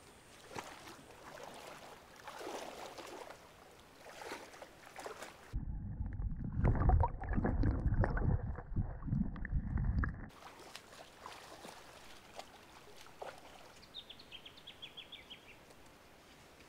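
Bare feet wading through a shallow river, the water sloshing and splashing irregularly with each step; the splashing is loudest for about five seconds in the middle, with quieter steps and rustles before and after.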